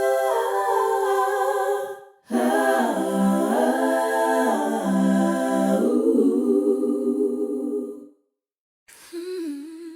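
Background music: wordless, unaccompanied vocals, hummed or sung on long held notes that slide between pitches. They come in phrases, with a short break about two seconds in and a brief silence near the end.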